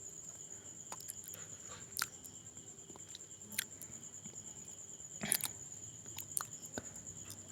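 Soldering work on a circuit board: a few faint, scattered clicks and light crackles of the iron and solder against the board pins, over a steady thin high-pitched whine.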